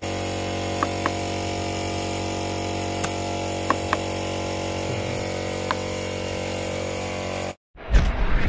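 A steady machine hum, an air compressor running, with a few light clicks from hands working a scooter tyre's valve stem. Near the end it cuts off abruptly and a loud, sudden intro sound effect starts.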